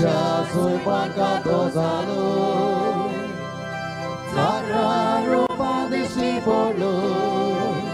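Hymn singing over a steady held instrumental accompaniment, with a new sung phrase entering about four seconds in.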